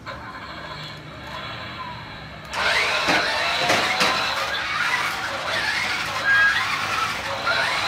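Radio-controlled toy off-road truck driving on carpet, its sound whining and gliding up and down in pitch with the throttle. It runs steadily at first and gets much louder about two and a half seconds in.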